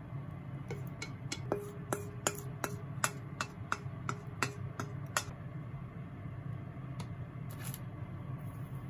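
Wooden chopsticks clinking against a stainless steel mixing bowl while spaghetti is pushed out of it onto a plate: about fifteen light taps, roughly three a second, each with a short metallic ring. They stop about five seconds in, and a steady low hum runs underneath.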